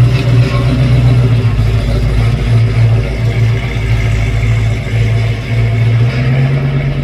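Car engine idling steadily close by, its pitch rising slightly about six seconds in.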